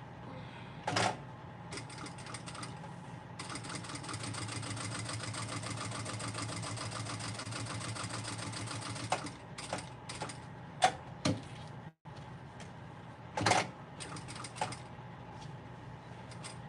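Electric sewing machine stitching around a small bookmark. It runs in short spurts, with one steady run of about five seconds in the middle, and stops and starts as the work is turned. A few sharp clicks follow the long run.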